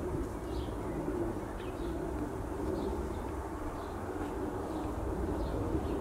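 Garden birds: a pigeon cooing low, with short faint chirps from small birds every half second or so, over a steady low rumble.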